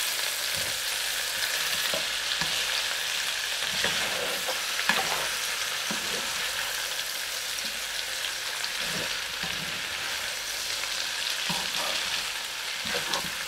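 Cabbage, broccoli and other vegetables stir-frying in oil in a nonstick pan: a steady sizzle, with short scrapes and knocks of a spatula turning them every few seconds.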